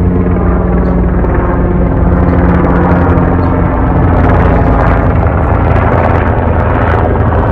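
A loud, steady low drone with a deep hum, like a motor or engine running nearby, unbroken throughout.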